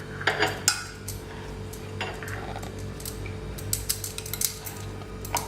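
Wooden rolling pin rolling out a small ball of puri dough on a rolling board: irregular light clicks and taps, over a steady low hum.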